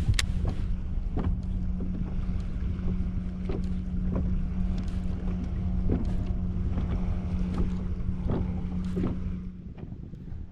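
A small fishing boat's motor running with a steady hum, with regular knocks of water slapping the hull, some wind on the microphone. The motor hum stops near the end.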